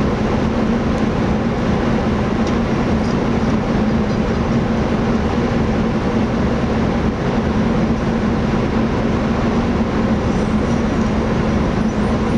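Car ferry under way: its engine runs with a steady, constant drone and hum that does not change.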